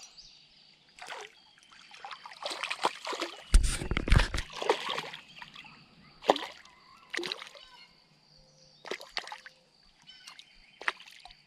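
A small crappie splashing and thrashing at the water's surface as it is reeled in to the kayak, in a string of separate short splashes. The loudest cluster comes around three to five seconds in, with a low thump.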